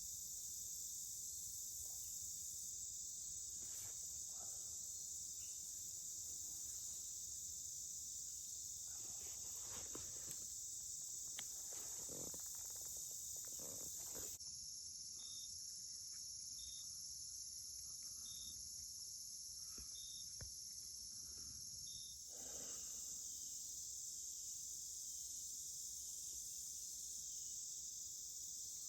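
Steady high-pitched chorus of crickets and other field insects trilling in tall grass. For several seconds in the middle the chorus changes to a thinner, lower trill with a soft chirp about every second and a half. A few faint rustles are heard briefly.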